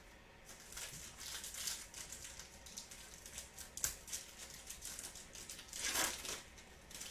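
Crinkling and tearing of a trading-card pack's plastic wrapper being opened and handled, in a run of crackly rustles that is loudest about six seconds in.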